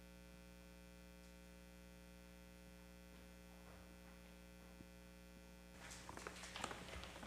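Steady, faint electrical mains hum. About six seconds in, irregular footsteps and shuffling begin as children walk up onto a stage.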